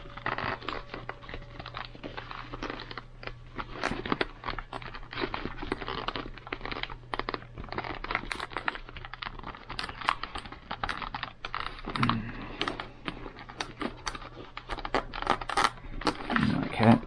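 Hands pressing and working the cheek pad of an HJC i10 motorcycle helmet back into its shell: a continuous run of rustling, scraping and irregular plastic clicks and knocks.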